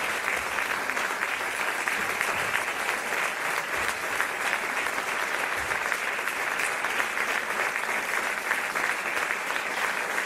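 Large seated audience applauding steadily, many hands clapping at once.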